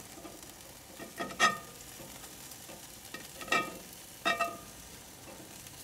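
Game shears snipping grilled chicken thighs in a cast iron pan: three sharp metallic snips with a short ring. Under them the chicken sizzles steadily over the charcoal.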